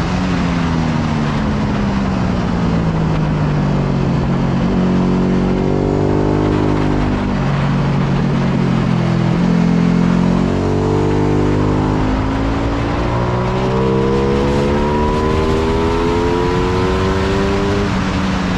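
Ducati Panigale V2's 955 cc L-twin engine heard onboard at track speed: its pitch falls as the bike slows for a corner, jumps in a few sudden steps, then climbs steadily again on acceleration out of the bend, over a steady rush of wind.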